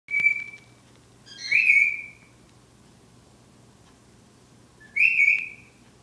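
Cockatiel whistling: three clear whistled notes, a short one at the start, then two longer ones about 1.5 s and 5 s in, over a low steady room hum.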